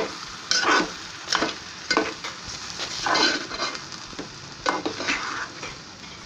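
Metal spoon stirring cooked horse gram and chopped vegetables in an aluminium pot, scraping against the pot in irregular strokes about once a second.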